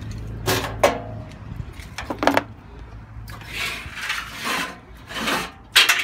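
A brick-damaged steel washing-machine drum turned by hand, scraping and rasping against its tub. There are a couple of sharp knocks in the first second, then several bursts of rasping in the second half.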